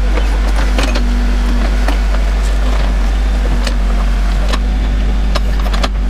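Backhoe loader's diesel engine running under load as its rear bucket digs out a tree stump, with a droning tone that comes and goes and scattered sharp cracks and knocks of wood and roots breaking.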